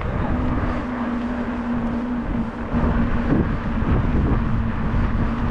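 Wind buffeting the camera microphone while riding a mountain bike, with a steady low hum underneath.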